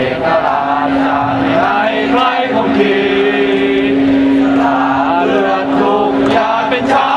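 Football supporters chanting and singing together in the stands, many voices in unison, with a steady tone held underneath for most of the stretch.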